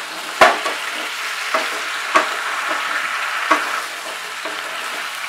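Mixed vegetables sizzling in hot mustard oil in a kadai over a high flame, stirred with a spatula that scrapes and knocks against the pan every half second to a second, loudest about half a second in.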